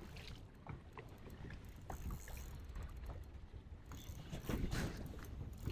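Water and wind against a small fishing boat's hull on choppy water: a steady low rumble with scattered small knocks and splashes, louder about four and a half seconds in.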